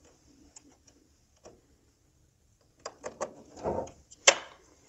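Plastic clicks and handling noise from a fuel-line quick-connect fitting as its black release clip is pulled back and the low-pressure fuel feed line is pulled off. Faint scattered clicks give way to a cluster of clicks about three seconds in, a short rustle, and one sharper click a little later, the loudest of them.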